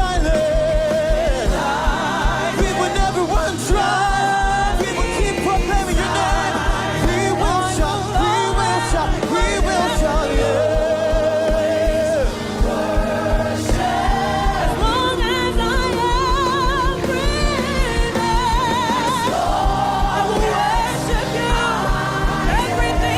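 Live gospel worship music: voices singing with vibrato over a band with a steady beat.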